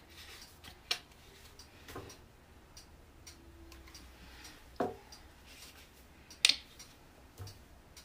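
A few scattered light clicks and knocks, the loudest about six and a half seconds in, from paint bottles and supplies handled on a plastic-covered work table, over quiet room tone.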